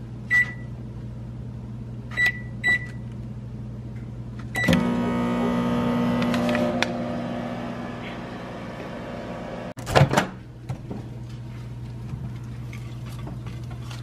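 LG microwave oven keypad beeping four times as the cooking time is entered and start is pressed, then the oven running with a steady hum, louder for the first couple of seconds after it starts. A loud clunk about ten seconds in.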